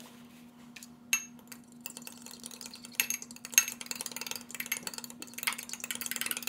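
Egg and milk being beaten together in a bowl, the utensil clicking and clinking against the bowl in quick, uneven strokes that grow busier after about three seconds. A steady low hum runs underneath.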